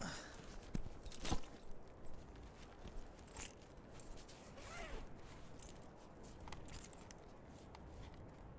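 Backpacks being handled and dropped onto gravel: nylon rustling with a thump a little over a second in, then light crunching footsteps on loose stones.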